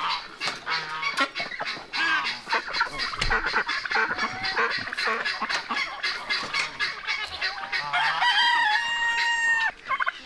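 Farmyard poultry calling over one another: rapid clucking and honking from chickens, ducks and geese, then a rooster crowing once, a steady call of about a second and a half, near the end.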